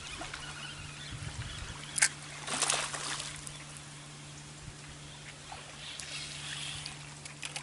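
Water splashing and sloshing near a boat over a steady low hum, with one sharp loud click about two seconds in.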